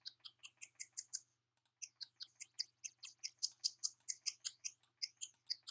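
Computer mouse scroll wheel ticking rapidly, about eight small clicks a second, with a brief pause about a second and a half in, as an on-screen knob is turned.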